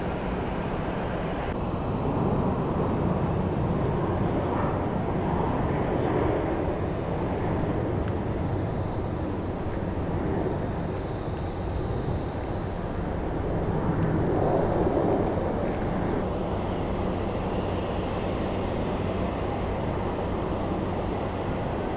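Steady rush of jet aircraft engine noise, with a low hum underneath, swelling slightly a couple of seconds in and again about fourteen seconds in.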